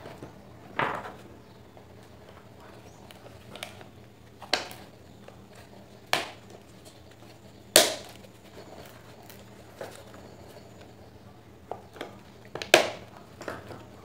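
Plastic fan-motor housing and parts knocking and clicking against each other as they are handled and fitted together. There are a handful of sharp knocks, the loudest about halfway through and again near the end, with lighter handling ticks between.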